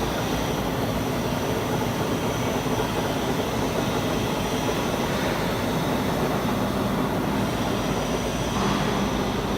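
Machine tool running steadily while machining a main drive shaft: a continuous mechanical drone with a low hum and a faint high whine, the tone shifting slightly near the end.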